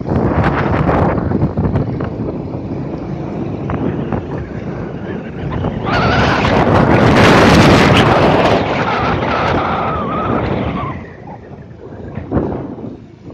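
Wind rushing over the microphone of a moving motorcycle, mixed with engine and road noise. It gets louder from about six seconds in, with a thin whine in it, then eases off about eleven seconds in.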